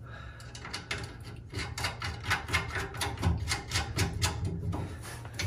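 Quick, uneven run of light metallic clicks from hand tools tightening a nut on a parking brake cable mount, with pliers holding the nut.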